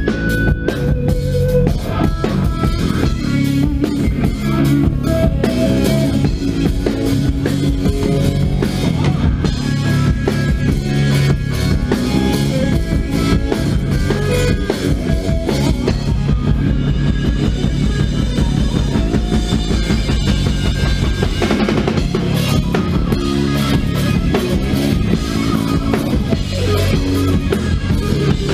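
Live rock band playing loud and without a break: drum kit with bass drum, electric guitar and bass guitar.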